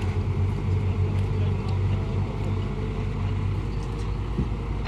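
Heavy diesel engines of an excavator and a dump truck running steadily as the excavator loads the truck, a continuous low drone.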